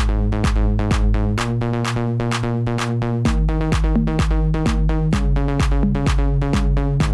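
Electronic dance music with a drum-machine beat of about three strokes a second over a sustained synth bass and chords; the deepest bass drops out briefly about a second and a half in, then returns.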